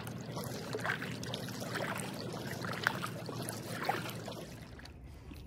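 Kayak paddling: the paddle blades dipping and pulling through lake water, with splashes and drips about once a second.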